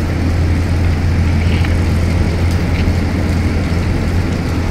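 A steady low mechanical hum with an even hiss over it.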